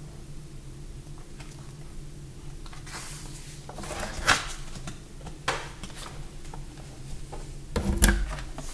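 Sketchbook pages being turned by hand: paper rustling with a sharp page flip about four seconds in and another about five and a half seconds in. Near the end comes a louder, heavier thump as the book is shut.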